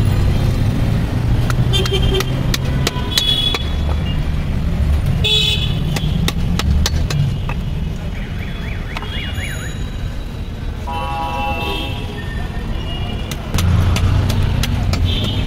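Road traffic with engines rumbling and several short vehicle horn honks, over scattered sharp clicks and scrapes from a curved boti blade shaving scales off a clown knifefish.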